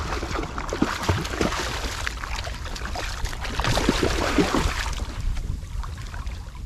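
A hooked fish thrashing and splashing at the water's surface right beside a kayak, with wind rumbling on the microphone. The splashing is busiest over the first five seconds and eases off near the end.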